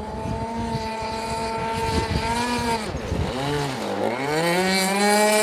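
Gas RC speedboat's two-stroke petrol engine running at speed, its pitch dipping about two-thirds of the way through and then climbing back up.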